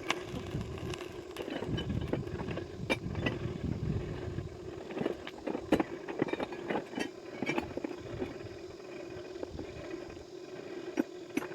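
A steady motor hum with a low rumble underneath, and sharp metallic taps and clicks coming at irregular intervals.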